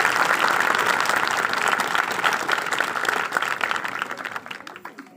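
A congregation applauding loudly, many people clapping at once; the clapping thins out and fades away over the last second or so.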